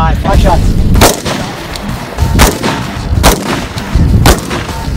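Four shots from an AR-15-style rifle, fired one at a time at uneven intervals about a second apart.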